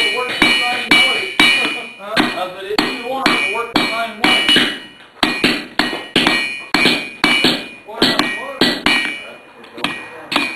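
Hammer blows on red-hot steel on an anvil, about two a second, each followed by a bright metallic ring from the anvil, as the smith draws out a rein (handle) of a pair of forged tongs.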